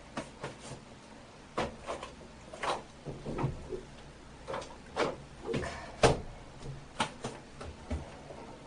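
Irregular clicks, taps and knocks of household items being handled and set down in a small room, with a cabinet or drawer opened and shut. There are about eighteen of them in all; the loudest knock comes about six seconds in.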